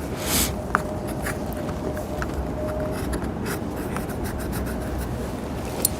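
An alcohol prep pad rubbing and wiping a truck hood's surface, light scratchy strokes with a few faint clicks, over a steady low background rumble.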